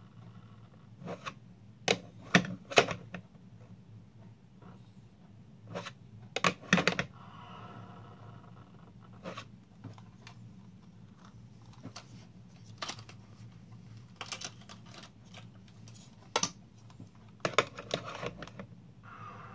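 Sharp plastic clicks and knocks, some single and some in quick clusters, as a 1/20 scale DeLorean model is handled and set against its magnetic levitation base, which will not make it float. A low steady hum runs underneath.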